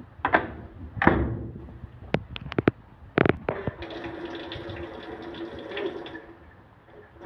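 Top-loading washing machine starting up: a few knocks and sharp clicks in the first three seconds, then water rushing steadily into the drum with a low hum, easing off near the end.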